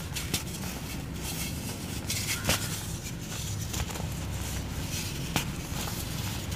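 Dry grey cement cones being crumbled and broken by hand over loose cement powder: a continuous grainy crunching, with four sharp cracks as pieces snap, over a steady low background hum.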